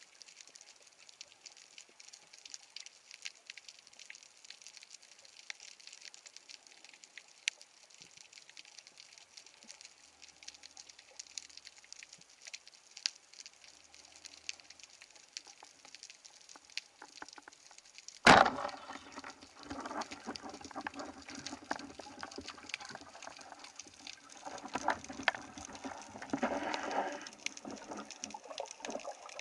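Underwater, a band-powered speargun fires once with a sharp crack about two-thirds of the way through, over a faint steady crackle of the sea; after the shot comes louder churning water noise as the shaft and line run out.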